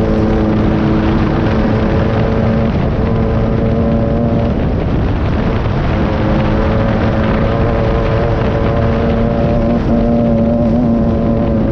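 Engine of a VW-powered Class 9 off-road race buggy running at speed, heard from inside the open cockpit over a steady rush of noise. The engine note holds at a steady pitch, drops away for a second or so about five seconds in, then comes back at about the same pitch.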